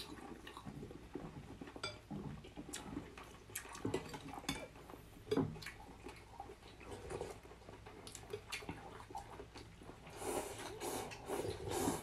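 Two people eating rice-noodle soup: scattered light clicks of chopsticks and spoons against glass bowls and wet slurps of noodles and broth, with a longer bout of slurping near the end.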